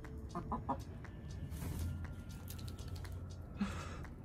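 Hens pecking, a run of light irregular taps, with a few short clucks in the first second.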